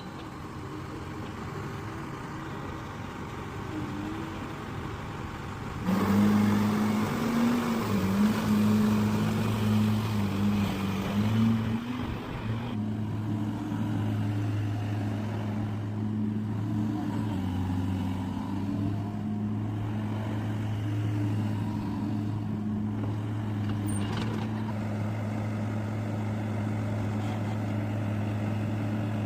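Diesel engine of heavy mining machinery running. It gets suddenly louder about six seconds in, its pitch wavers for several seconds, then it settles into a steady hum.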